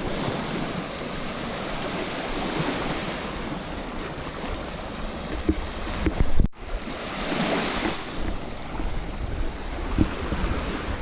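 Lake Huron waves washing onto a sandy shore, with wind buffeting the microphone. The sound cuts out for an instant about six and a half seconds in, then a louder surge of surf follows.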